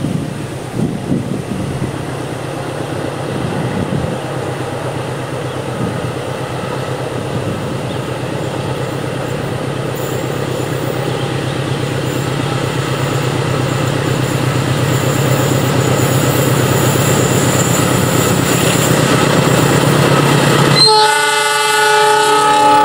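Two CC206 diesel-electric locomotives approaching at the head of a train, their engine drone growing steadily louder. About a second before the end the locomotive horn sounds, a loud held chord of several tones.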